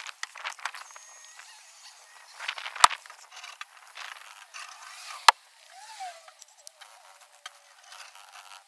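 A sponge dabbing and rubbing over car-seat leather, with scattered light clicks and scuffs of handling. Two sharp knocks about 3 and 5 seconds in are the loudest sounds, and a short wavering squeak comes near the 6-second mark.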